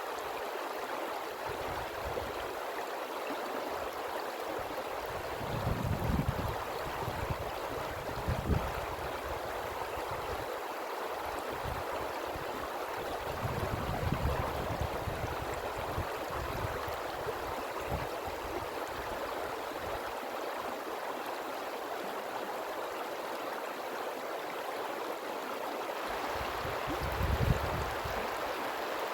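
River water rushing and gurgling steadily, with a few brief low rumbles swelling up now and then.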